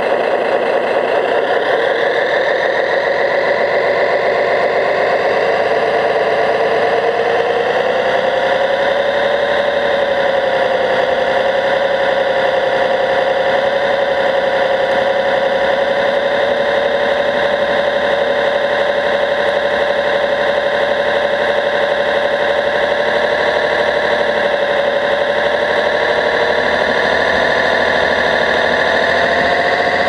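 Radio-controlled Liebherr 741 model bulldozer driving, a steady mechanical whine from its drive. The pitch rises about a second in, holds, and shifts again near the end.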